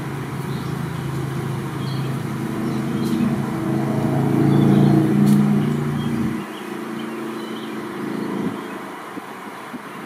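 A motor vehicle's engine passing, a low steady hum that grows louder to a peak about five seconds in, then drops away suddenly a second or so later.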